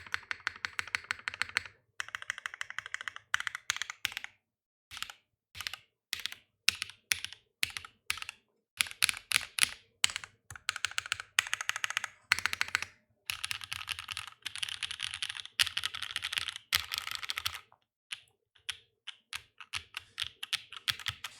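Typing on a Haus mechanical keyboard in top-mount layout with factory-lubed Red Jacket linear switches (nylon housings, long-pole POM stems) and no dampening: fast runs of key clacks broken by short pauses.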